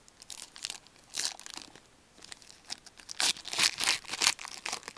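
A hockey card pack's wrapper being torn open and crinkled in gloved hands, with a run of louder crinkling in the second half.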